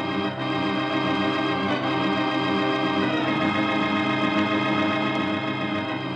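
Organ music playing held chords that change twice: a curtain-raising music cue opening the act of a radio drama.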